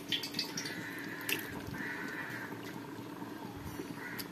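Raw chicken pieces and masala sizzling faintly in a pot on low heat, with a few light metal clicks from a slotted spoon near the start and about a second in.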